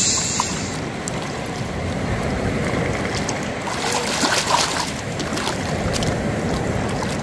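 Water splashing and sloshing as a plastic action figure is plunged and pushed about in a shallow puddle, loudest about four seconds in, over a steady rushing noise.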